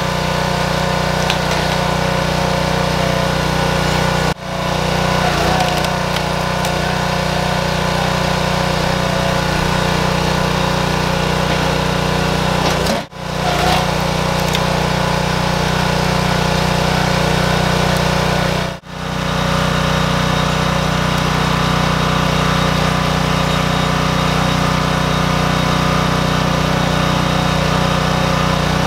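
Briggs & Stratton 6.5 HP single-cylinder engine of a towable petrol log splitter running steadily, driving the hydraulic pump while an oak log is split. The sound drops out briefly three times.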